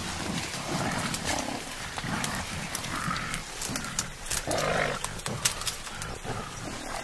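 Mountain gorillas feeding in bamboo: a run of sharp snaps and cracks from the stems, mixed with short, low animal grunts.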